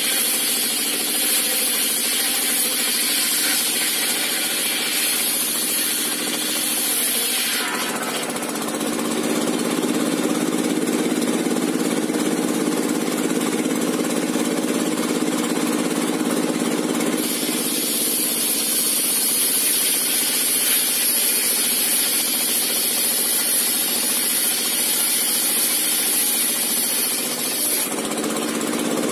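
Homemade circular saw bench driven by a single-cylinder diesel engine (dompeng), running continuously as a long timber is ripped lengthwise through the blade. A high whine drops out about 8 seconds in while a lower tone grows, and comes back about 17 seconds in.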